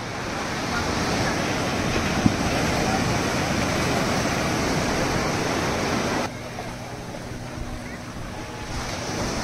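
Surf breaking and washing up a sandy beach, a dense steady wash with wind buffeting the phone microphone. About six seconds in the sound drops abruptly to a quieter wash of waves. A single brief knock comes about two seconds in.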